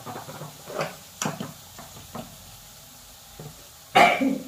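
Light knocks and clinks of kitchen things being handled and set down, then a short, loud, sudden sound near the end.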